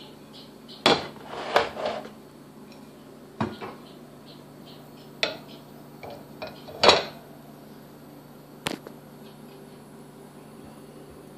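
A ceramic plate clinking and knocking against a wire dish drying rack as it is handled in and out of the rack: about seven separate sharp knocks with a short ring, the loudest about seven seconds in.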